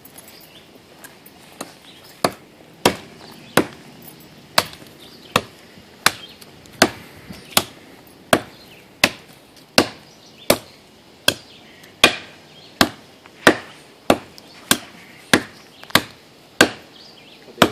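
Cuma battle cleaver chopping into the trunk of a live, wet pine tree: sharp, steady blows about three every two seconds, starting lightly and striking hard from about two seconds in.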